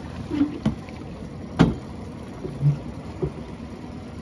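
Knocks and thumps from people climbing and shifting about in a loaded inflatable dinghy alongside a sailboat's stern, over steady water noise. The loudest thump comes about one and a half seconds in, with smaller knocks before and after it.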